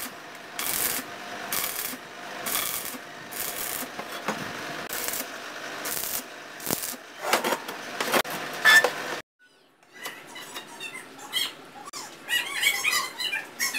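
Stick welder's arc crackling and sizzling as a bead is run on steel angle bar, surging about once a second. It cuts off suddenly about nine seconds in, and short high chirps follow near the end.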